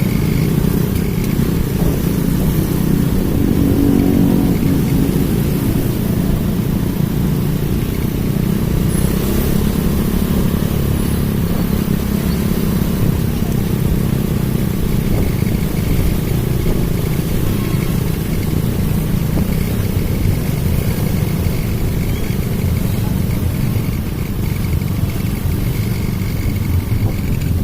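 Steady street traffic, mostly motorcycles running past, making a continuous low rumble.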